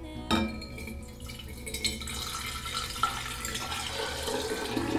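Water poured from a glass vase into another glass vase, splashing and filling, louder and more gurgling as it goes. A sharp clink comes near the start.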